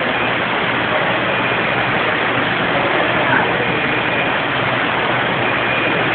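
Heavy storm rain and flash-flood runoff rushing down the street, a steady loud rushing hiss.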